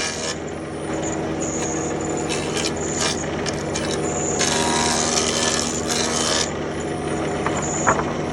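A woodworking power tool's motor humming steadily, with rasping bursts of it cutting into wood: several short ones, then a longer one lasting about two seconds in the middle.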